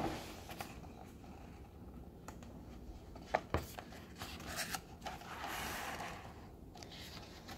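Pages of a hardcover picture book being turned: a sharp tap at the start, a few faint knocks, and a soft paper rustle about five to six seconds in.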